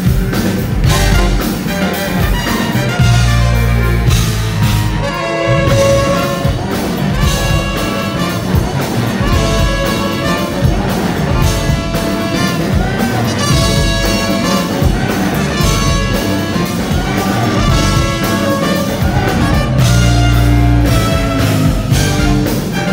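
Live band: a trumpet playing a lead melody in held and moving notes over electric guitar and drums.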